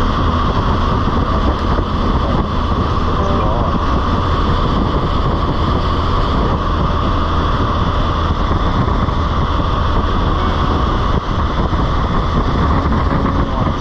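Steady wind rush over the microphone, with the low road and engine rumble of a Can-Am Spyder three-wheeler cruising at highway speed.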